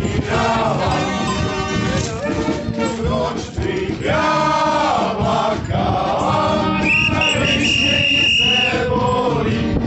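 A group of men singing together as they march. About seven seconds in, a high steady note sounds above the voices for nearly two seconds.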